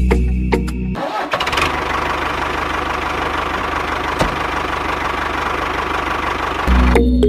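Toy tractor's engine running with a fast, even chug and a hiss. It starts abruptly about a second in and cuts off abruptly near the end.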